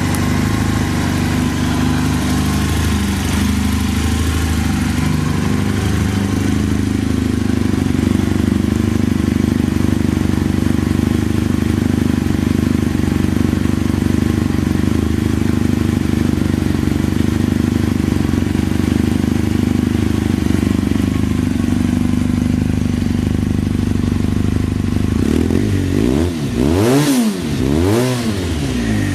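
Suzuki GSX-R750 inline-four motorcycle engine idling steadily with no abnormal noise. Near the end the throttle is blipped a few times, the revs rising and falling quickly.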